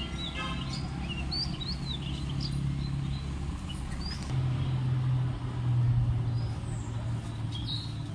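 Small birds chirping in short, scattered calls, most of them in the first few seconds, over a steady low rumble that swells twice in the second half.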